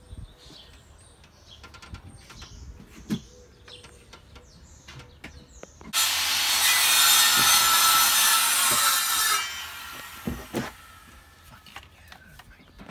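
Light knocks and taps on wood, then about six seconds in a power tool starts suddenly and runs steadily on wood with a loud rasping noise for about three and a half seconds before stopping.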